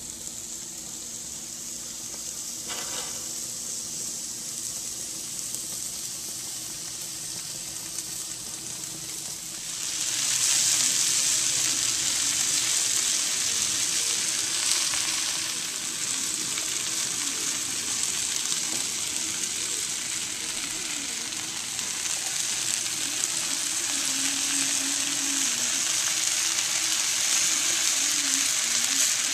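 Peppers and onions sizzling in a hot cast iron skillet, a steady frying hiss that jumps much louder about ten seconds in and stays loud.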